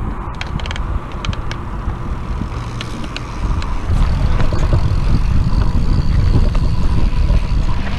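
Mountain bike rolling down a dirt singletrack: tyre noise and rattle under a heavy low rumble of wind buffeting the helmet camera's microphone. There are a few sharp clicks near the start, and it gets louder a few seconds in as the bike picks up speed.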